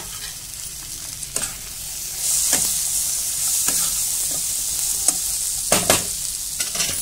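Onions, tomatoes, cashews and whole spices sizzling in a kadhai, the sizzle growing louder about two seconds in. A steel spatula stirs and scrapes the pan, giving several sharp knocks, the loudest two close together near the end.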